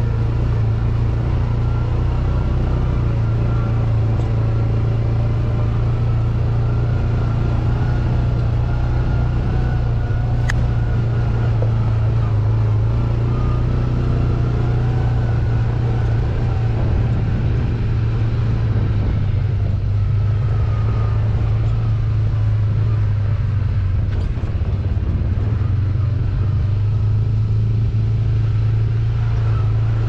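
A vehicle engine running steadily on the move: a loud, even low hum whose pitch drifts slightly up and down.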